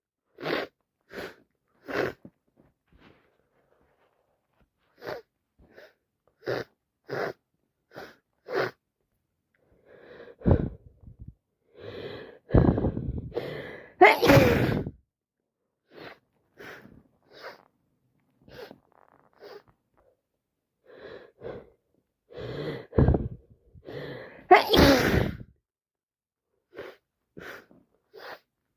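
A person with a heavy head cold sneezing over and over: a run of short, sharp sneezes and sniffs, then two big full sneezes after a gasping build-up, about halfway through and near the end.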